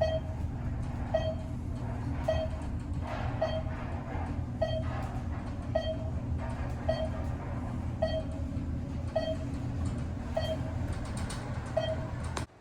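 Hotel elevator in motion: a short chime sounds about once a second, about eleven times, over the steady hum of the moving car. The hum and chimes cut off suddenly near the end.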